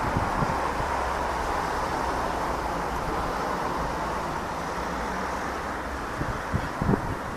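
Steady, distant rumbling roar of a four-engined Airbus A340-600 jet airliner at cruise altitude, with wind buffeting the microphone and a few gusts thumping on it near the end.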